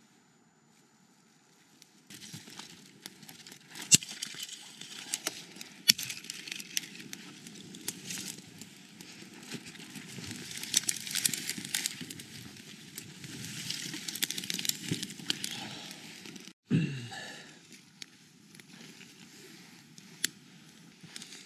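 Campfire burning, the wood crackling with frequent sharp pops, starting about two seconds in. Near the end there is a short break, then a brief low sound, and the crackling goes on more quietly.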